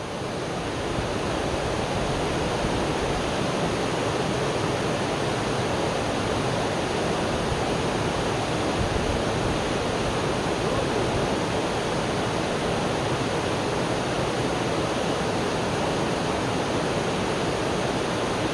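Rushing water running steadily, an even, unbroken wash of noise that comes up in the first second and then holds level.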